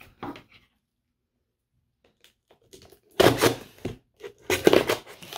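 Bubble wrap crinkling and rustling as a packed item is unwrapped by hand: a short quiet stretch, then two bursts of crackling, about three and about four and a half seconds in.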